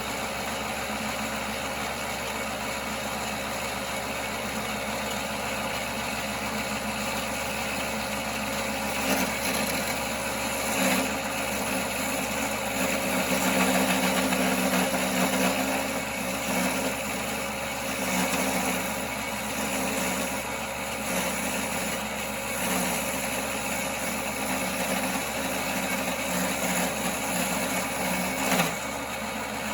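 1939 Pow-R-Kraft wood lathe running steadily. From about a third of the way in, a turning tool cuts into the spinning firewood blank in uneven stretches, then stops shortly before the end.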